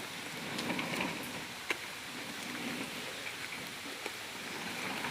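Steady rain falling, with a few sharp drip ticks, the loudest about a second and a half in.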